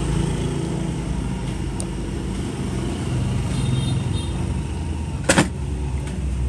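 Steady low rumble of road traffic, with one sharp click about five seconds in.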